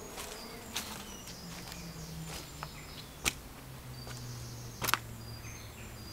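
A few scuffing footsteps on dirt and leaf litter as someone walks, with the loudest near the middle and again about five seconds in. High short chirps and a steady low hum, stronger from about four seconds in, run underneath.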